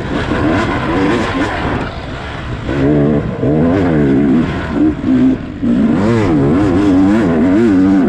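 Dirt bike engine revving up and down as the throttle is worked, its pitch rising and falling again and again, with a short dip about five and a half seconds in.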